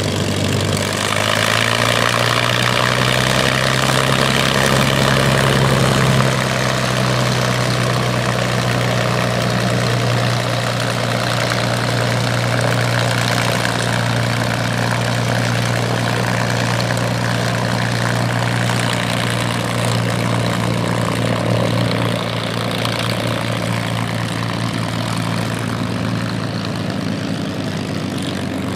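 P-51 Mustang's Merlin V-12 engine idling on the ground at close range. It runs steadily, easing slightly about six seconds in.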